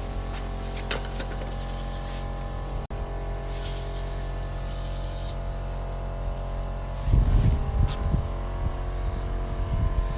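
Paint spray gun hissing in one burst of about two seconds, over a steady machine hum, with low rumbling knocks near the end.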